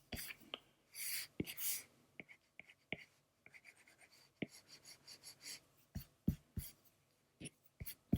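Drawing strokes: the tip of a drawing tool scratching and tapping on the drawing surface while colouring, in short separate strokes with scattered sharp taps.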